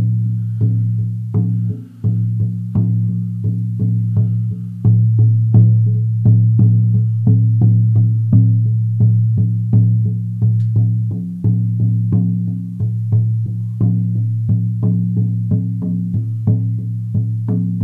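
18-inch buffalo-skin frame drum on an ash frame, beaten with a soft beater in a steady beat of about two strokes a second. Each stroke leaves a low, sustained boom that runs into the next, so the drum rings on continuously under the beats.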